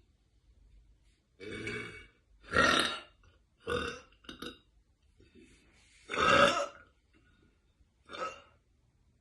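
A woman burping several times in a row, with short pauses between. The two loudest and longest burps come about two and a half and six seconds in.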